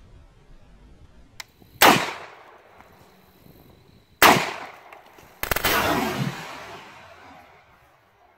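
Gunshots from a semi-automatic long gun: two single shots about two and a half seconds apart, then a quick string of several shots with a long rolling echo that dies away over about two seconds.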